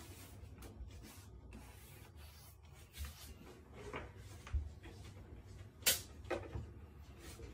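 All-in-one PC parts being handled during the repair: scattered light clicks, taps and rubbing, with the sharpest click about six seconds in.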